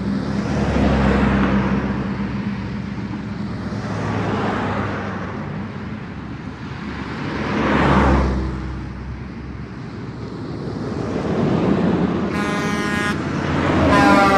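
Train engine rumbling steadily, swelling and fading several times, then two horn blasts near the end, the second falling in pitch as it passes.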